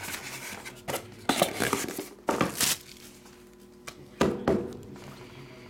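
Trading cards in rigid plastic holders being handled as they come out of a foam-lined card box, in about four short bursts of handling noise.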